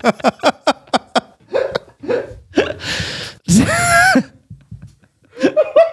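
Men laughing hard: a fast run of short laughs in the first second, then two long, high-pitched laughs.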